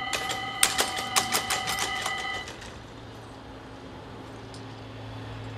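Level-crossing warning bell ringing steadily, then cutting off abruptly about two and a half seconds in, once the barriers are down. A quick clatter of knocks sounds over the bell during the first two seconds as the barrier arms come to rest. After that only a low steady hum of traffic remains.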